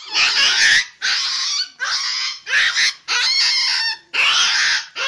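Puppy screaming in fear of a monkey: a run of about six loud, high-pitched shrieks, each under a second long, with short gaps between them.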